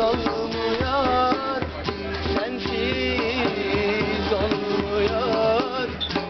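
A man sings in a wavering, ornamented voice over a strummed acoustic guitar.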